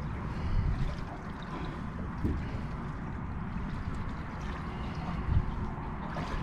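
Water lapping and sloshing against a boat's hull, a steady low wash with a few faint knocks.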